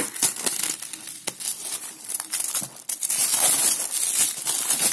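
Clear polythene wrapper being peeled off a cardboard box and crumpled by hand: scattered sharp crackles at first, then a denser, continuous crinkling from about three seconds in.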